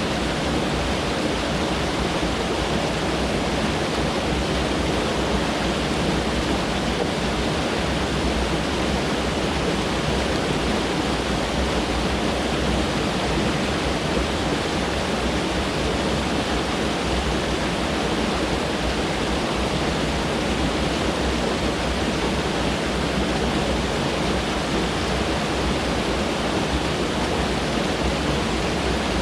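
Mountain stream rushing over rocks, a steady even roar of water.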